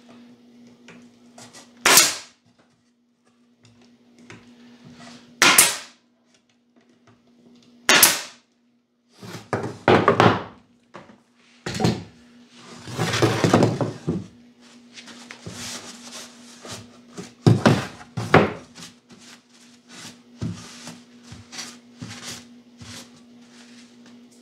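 Pneumatic stapler driving staples into pine boards: three sharp shots a few seconds apart, then scraping and wooden clatter as the boards are handled, and two more sharp knocks. A faint steady hum runs underneath.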